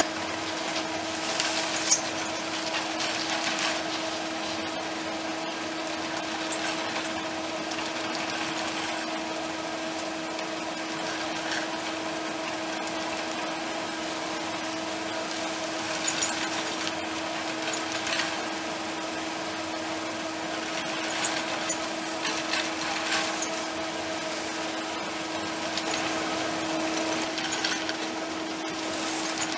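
Button (platter) ski lift running: a steady mechanical hum from its drive and bullwheel, broken now and then by short bursts of rattling and clicking as the tow hangers go round.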